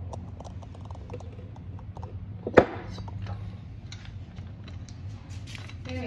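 Scattered light clicks and clinks from handling tools and parts, with one sharp knock about two and a half seconds in, over a steady low hum.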